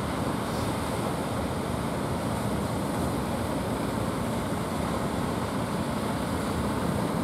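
Steady wash of breaking surf and wind at a river mouth, with a faint low drone underneath.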